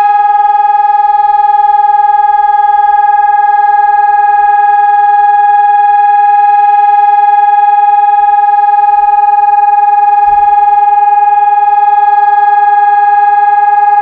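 Civil defence siren sounding one steady, unwavering tone with no rise or fall: the German all-clear (Entwarnung) signal of a warning-day siren test.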